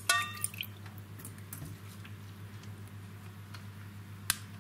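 A small glass cup clinks against a stainless-steel pot with a short ringing note as it is dipped into weak potassium permanganate solution. Scattered drips of liquid and light taps follow.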